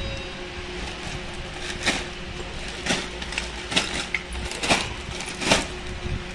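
Sharp knocks and crackles about once a second as toddlers handle plastic toys, a wooden stick and a crisp packet, over a faint steady hum.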